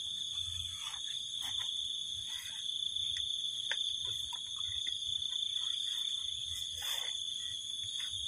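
Steady high-pitched chirring of insects, with a few faint scattered clicks and rustles.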